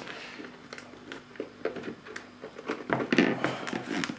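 Cardboard packaging being handled: the headphones' inner box is slid out of its printed sleeve and its lid flap opened, a run of light scrapes and taps that is busiest about three seconds in.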